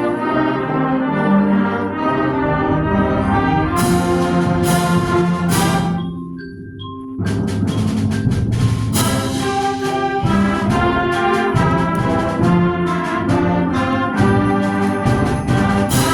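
Concert band playing, brass to the fore, with sharp percussion strikes. About six seconds in, the full band drops away to a low held note and a few high single notes, then comes back in full about a second later.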